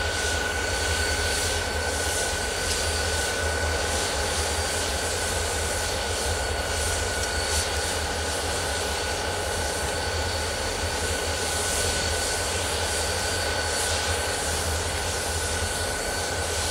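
Diesel locomotives idling in a rail yard: a steady drone with a constant high-pitched whine over it.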